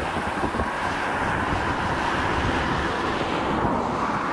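The four turbofan engines of a Boeing OC-135B at takeoff thrust during its takeoff roll: a steady rushing jet noise, with wind buffeting the microphone.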